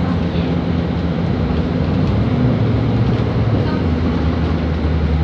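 Volvo B7RLE bus's diesel engine and drivetrain heard from inside the passenger cabin as the bus drives along: a steady low engine drone over road noise. About four seconds in, the engine note drops to a lower pitch.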